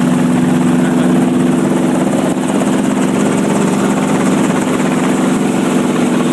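Helicopter engine and rotor heard from inside the cabin in flight: a loud, steady hum of engine tones over rushing noise.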